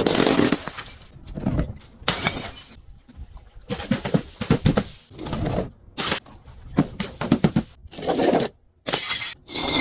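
Glass shattering and crunching as it is broken, in a run of separate breaks a second or so apart.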